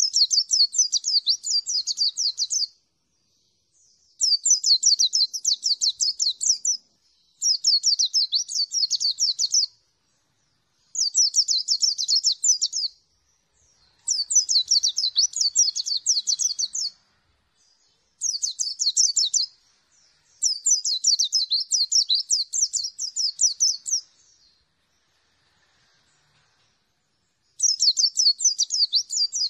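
Caged white-eye (pleci) singing in repeated bursts of rapid, high twittering, each burst two to three seconds long with short pauses between, about eight bursts in all.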